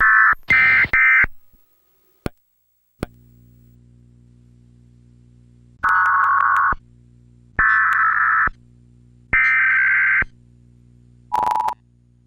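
Emergency Alert System data bursts: a few short bursts at the start, then three bursts of about a second each, spaced evenly about a second and a half apart. Near the end comes a short single steady tone. A faint steady low hum runs underneath from about three seconds in.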